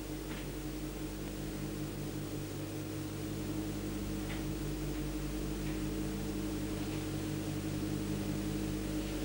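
Steady electrical mains hum with a low throb pulsing a few times a second and a few faint ticks, the background hum of an old tape transfer with no other sound on the track.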